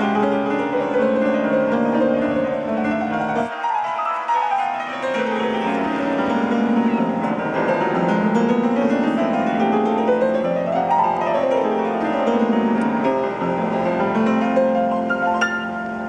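Grand piano playing, with fast runs sweeping up and down the keyboard.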